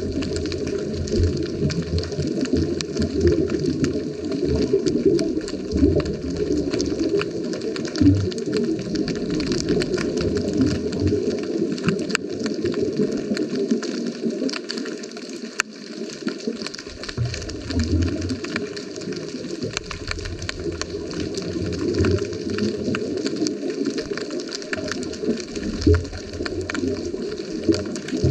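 Underwater sound picked up by a GoPro in its waterproof housing: a steady, muffled rumble of water with many small sharp clicks and crackles running through it.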